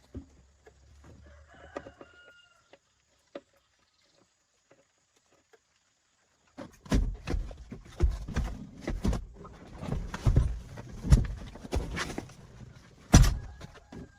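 A chicken calls faintly near the start. About halfway through, a run of loud, irregular knocks and clatter begins, with the heaviest bang near the end.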